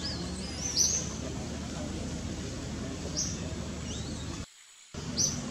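Small birds chirping: several short high chirps and a warbling call that glides up and down, over a steady low outdoor background noise. The sound cuts out for about half a second near the end.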